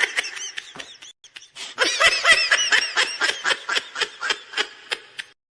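High-pitched laughter in quick repeated bursts, several a second, in two runs: it fades and breaks off about a second in, then starts up again and tails away near the end.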